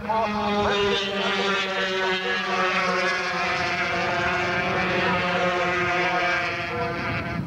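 Racing motorcycle engines at high revs as a group of bikes passes, one steady engine note that dips slightly in pitch about halfway through.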